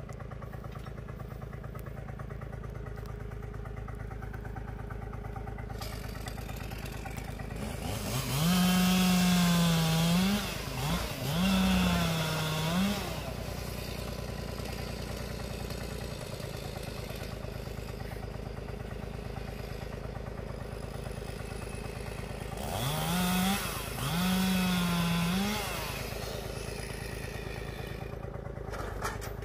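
A chainsaw revs up and cuts branches off a pine log, in two pairs of short runs of a couple of seconds each: one pair about a third of the way in, the other past three-quarters. Under it, a farm tractor's diesel engine runs steadily.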